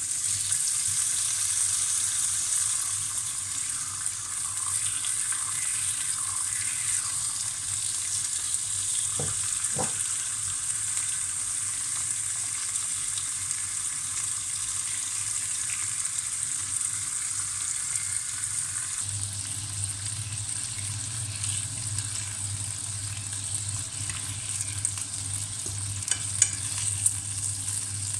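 Bacon strips frying in a nonstick frying pan: a steady sizzling hiss with fine crackling. About two-thirds through a low hum joins, and near the end a metal fork clicks against the pan a few times as it turns the bacon.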